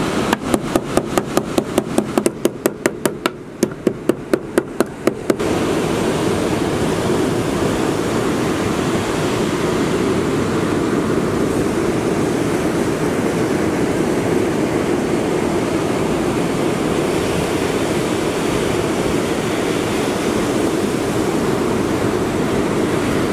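Small bait mallet striking bait on a plastic bait board, a quick run of sharp knocks about four a second for some five seconds, tenderising the bait before it is wrapped on the rig. After that, steady surf and wind noise.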